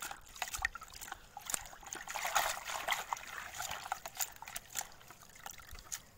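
Water sloshing and splashing in a plastic bucket as a hand swishes and rinses aquatic plants, with irregular small splashes that are busiest about two seconds in.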